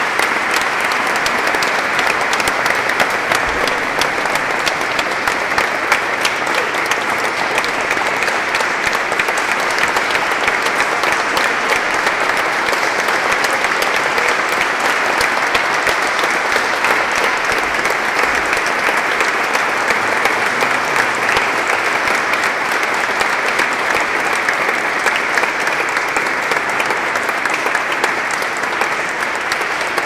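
An audience applauding steadily, many people clapping at once, in a large church.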